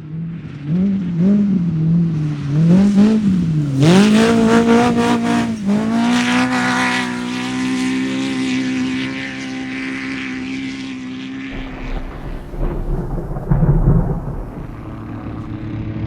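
Off-road race vehicle's engine revving up and down a few times, then climbing to high revs and holding there steadily for several seconds. About two-thirds of the way through, the steady note drops away and a deeper rumble takes over.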